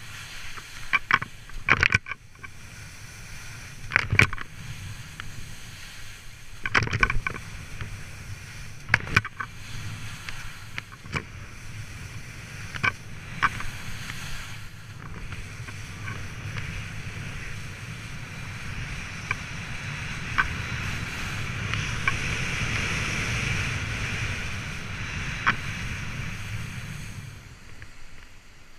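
Skis sliding and scraping over snow through a run of turns, with sharp scraping knocks scattered through the first half. Over the second half a steadier rushing noise builds, loudest a few seconds before the end, then falls away.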